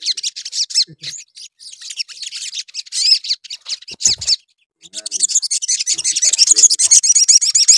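Caged male olive-backed sunbird singing a high, rapid twittering song in short phrases, then a long, fast, continuous trill. The song breaks off briefly about four seconds in, just after a soft thump. This is full 'gacor' song, the kind used to provoke rival sunbirds.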